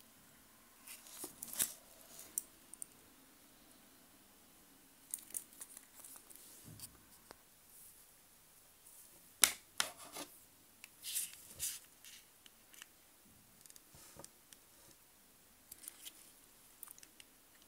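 Handling noises from a stainless-steel wristwatch and its leather strap turned in the fingers: scattered short scrapes and clicks in several clusters, the loudest about nine and a half seconds in.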